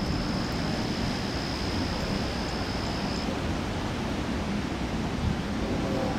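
Steady wind blowing, rumbling on the microphone, with a thin steady high tone that stops about halfway through. Music starts near the end.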